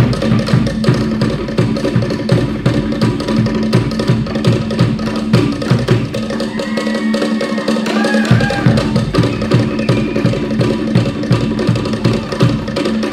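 Traditional Cook Islands drumming: fast, driving rhythms beaten on wooden slit drums over a deep bass drum. The deep drum drops out for about two seconds around the middle, leaving only the wooden drums.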